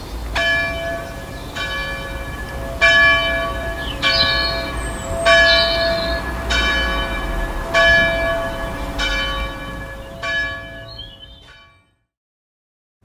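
A church bell tolling, about nine strikes a little over a second apart, each left to ring on. The tolling fades out near the end.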